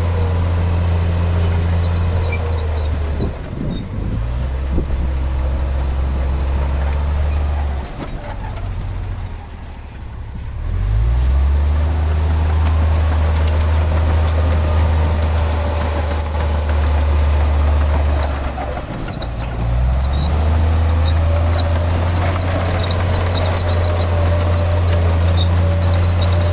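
A Shantui bulldozer's diesel engine runs heavily under load. The engine note drops off and picks back up three times: about three seconds in, again from about eight to eleven seconds, and once more around twenty seconds. A higher whine rises and falls above the engine.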